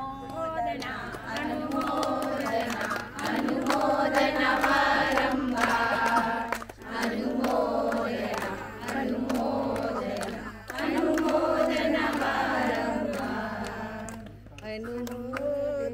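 A group of voices chanting or singing together in unison, in about five long held phrases of a few seconds each, with short breaks between them.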